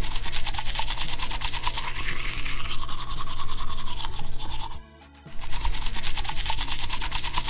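Small plastic toy toothbrush scrubbing Play-Doh teeth in a toy mouth, in rapid back-and-forth strokes, with a short pause about five seconds in.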